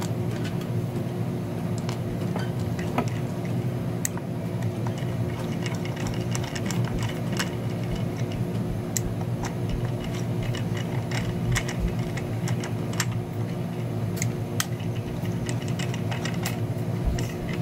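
Irregular small clicks and ticks of a screwdriver turning screws into the plastic case of a Saladmaster electric skillet's heat controller as it is screwed back together, over a steady low hum.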